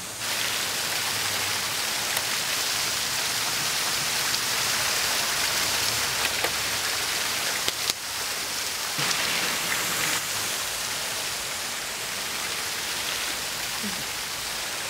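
Water pouring and splashing steadily out of a television set, a continuous rushing hiss with a few faint clicks.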